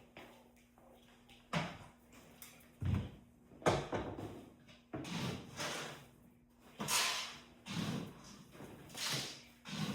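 A series of knocks, scrapes and rustles, about nine in ten seconds, as bird-cage parts, trays and bedding are handled during cage cleaning. A faint steady hum runs underneath.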